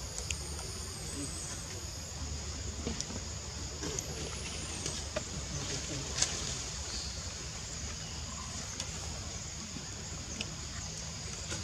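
Steady outdoor background noise: a low rumble under an even high-pitched hiss, with a few faint clicks.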